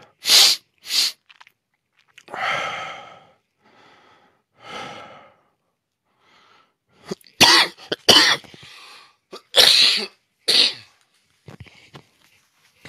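A man coughing: two sharp coughs at the start, then a fit of about four more coughs a few seconds later. Between them come two longer, breathy exhalations.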